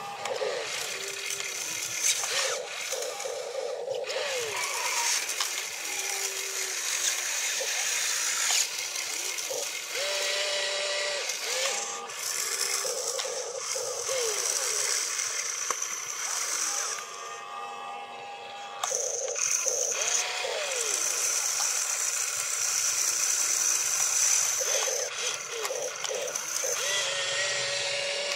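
Remote-controlled excavator's small motors and gearing whirring and whining as the boom lifts and the cab swings, the pitch rising and falling as each motion starts and stops. The whirring drops away briefly about two-thirds of the way through, then starts again.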